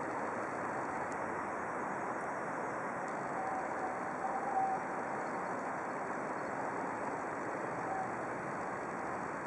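Steady outdoor background noise, an even rush with no distinct events. A faint, brief higher tone rises out of it about four seconds in and again near the end.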